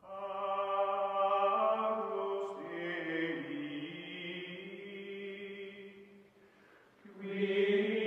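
Chanted, choir-like vocal music with long held notes. It fades about six seconds in and a new phrase starts about a second later.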